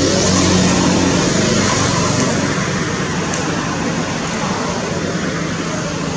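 Steady rushing background noise with a faint low hum, easing off slightly in the second half.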